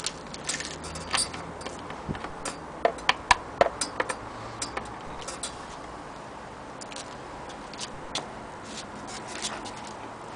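Scattered, irregular clicks and light knocks from handling the sewing machine and its power cord, with a quick cluster of them a few seconds in.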